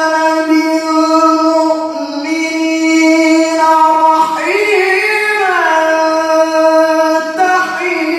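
A male qari reciting the Qur'an in melodic tilawah style into a microphone, holding long notes with a rising and falling ornament about halfway through.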